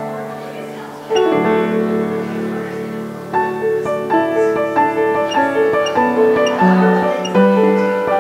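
Piano music: a fresh chord struck about a second in, then a slow melody of single notes over held low chords.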